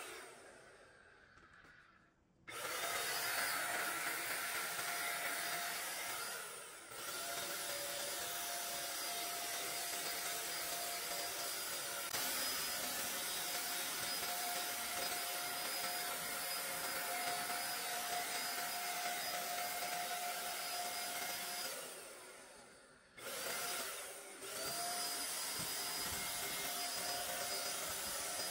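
Handheld electric paint sprayer running steadily with a whirring whine as it sprays finish. The sound fades away and comes back abruptly twice, about two seconds in and again near the end.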